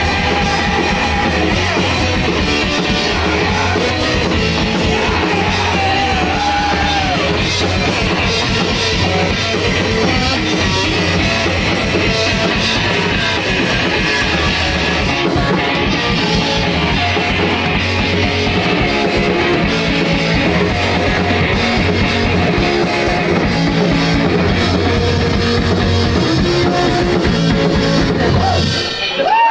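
Live rock band playing loud: electric guitar and drum kit pounding along steadily, with some singing, until the music breaks off just before the end.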